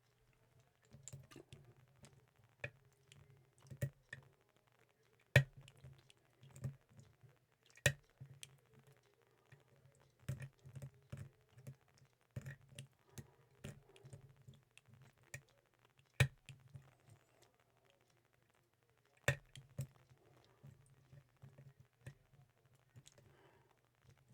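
Lock pick and tension wrench working the keyway of an Ace 54541 brass padlock: irregular small clicks and scratches as the pins are probed and set, with a few sharper, louder clicks.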